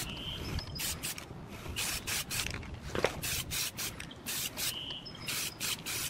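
Aerosol spray paint can spraying in a run of short hissing bursts, several a second at times, as the panel is coated black. A single knock about halfway through.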